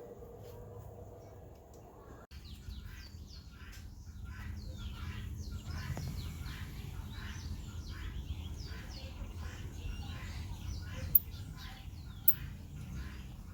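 Birds chirping busily, many short calls in quick succession over a low rumble, with two sharp clicks near the end.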